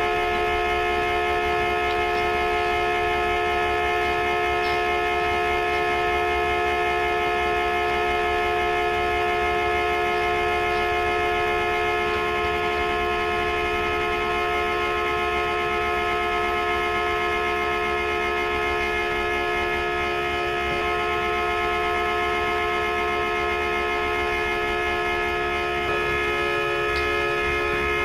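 Car horn sounding in one steady, unbroken blare: a horn left sounding non-stop after a crash.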